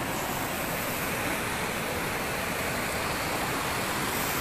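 Muddy floodwater of a swollen river rushing by, a steady, even noise.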